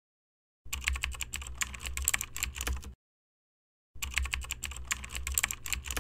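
Computer keyboard typing sound effect: rapid key clicks in two runs of about two seconds each, with a second of dead silence between them, for on-screen text being typed out.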